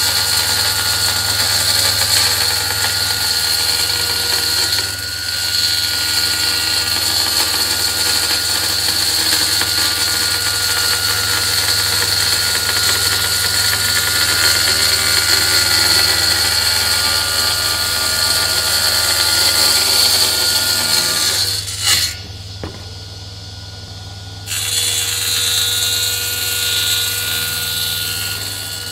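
Table saw running steadily, a low motor hum under a high whine. Near the end it drops in level and loses its high hiss for about two seconds before coming back.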